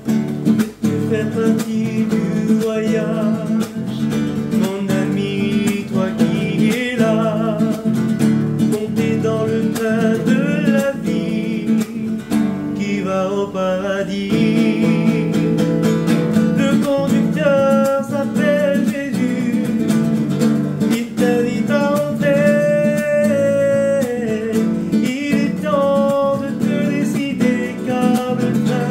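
Cutaway classical guitar strummed in a steady rhythm, with a man singing a melody over it from a few seconds in.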